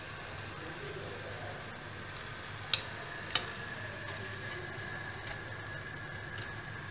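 Two sharp metallic clicks, about half a second apart, of a metal kitchen utensil knocking against a pan, over a faint steady hum.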